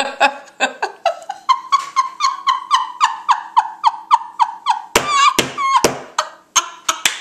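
A woman laughing hard: a long run of quick, high-pitched 'ha' pulses, about four a second, breaking about five seconds in into breathier, gasping bursts of laughter.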